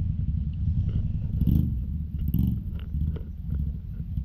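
ATV engine running with a steady low rumble, with a few faint clicks and knocks over it.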